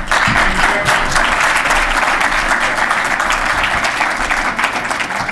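Audience applauding: a dense round of clapping that starts suddenly and tapers off near the end.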